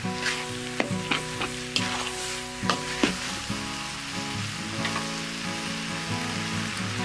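Minced meat sizzling in a hot metal wok as it is stir-fried, with a metal spatula scraping and clacking against the pan several times in the first three seconds.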